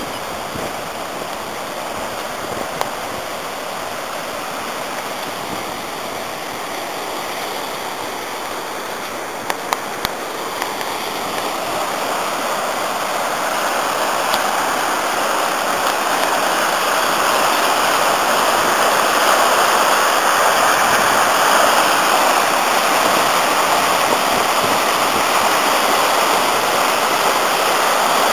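River Artro in spate after heavy rain, its water rushing over rocky rapids in a steady roar that grows louder from about ten seconds in as it comes closer. A couple of brief clicks sound just before it swells.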